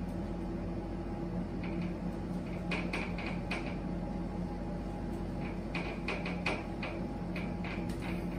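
Whiteboard eraser wiping across a whiteboard in short quick strokes, in two spells: about three seconds in and again around six to seven seconds. A steady low hum runs underneath.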